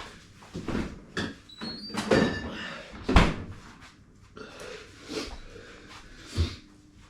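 A string of irregular knocks and bumps, like doors or cupboards being handled, with the loudest knock about three seconds in.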